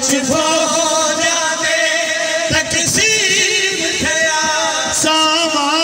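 A man singing a Punjabi noha (Shia lament) into a microphone over a PA, with long held notes that waver and slide between pitches. A few sharp thumps cut through, about two and a half to three seconds in and again near five seconds.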